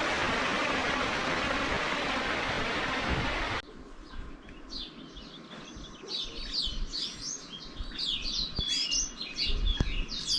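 A steady rushing noise cuts off suddenly about three and a half seconds in, giving way to many small birds chirping and singing, busier toward the end.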